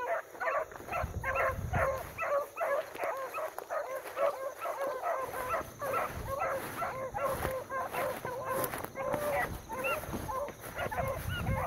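A pack of beagles baying in quick, overlapping calls without a break as they run a scent trail through the brush.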